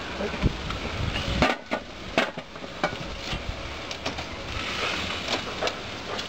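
Scattered clinks and knocks of dishes and utensils being handled, over steady background noise.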